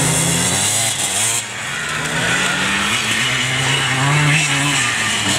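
Classic off-road motorcycle engine running hard under throttle on a dirt course, its pitch dropping briefly about a second and a half in, then rising again.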